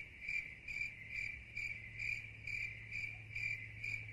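Cricket chirping, faint and evenly paced at about two chirps a second, over a low steady hum.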